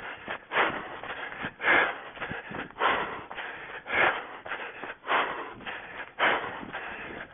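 An orienteer's heavy breathing while running, close to the microphone: a loud, rasping breath about once a second, with fainter sounds between.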